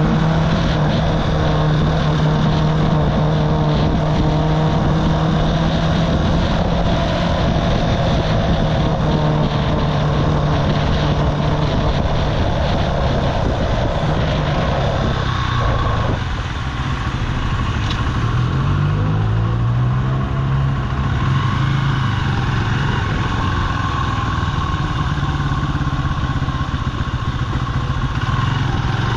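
Archive Motor AM60 125cc motorcycle engine running at steady revs with a buzzy note, heard over wind rush on the microphone. About halfway through the engine drops off as the throttle closes, then its pitch slides up and down as it picks up speed again and settles into a steady run.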